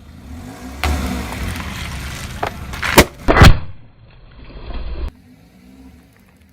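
Car tyre rolling slowly over an object and crushing it, with the engine running low, and two loud sharp cracks about three seconds in as the object gives way.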